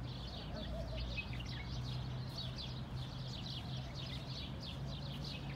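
Many small birds chirping together in the park trees: a dense, quick chatter of short high chirps. A low steady hum runs underneath.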